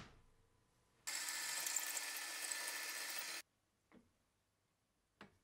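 Bench drill press running and drilling into steel bar. It starts suddenly about a second in, runs steadily for about two seconds and cuts off abruptly, followed by two faint ticks.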